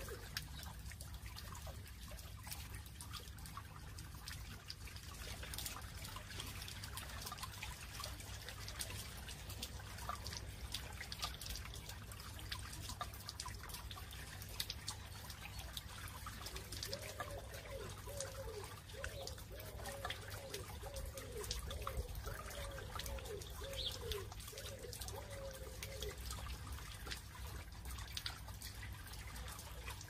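Water trickling and dripping over the wet boulders of a stone bubbler fountain into its pebble basin, with a steady low hum underneath. About halfway through, a run of short repeated animal calls, roughly two a second, goes on for several seconds.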